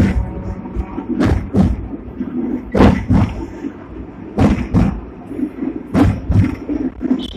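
Hong Kong double-deck electric tram No. 67 running along its track, with irregular loud knocks and clatters over a low rumble.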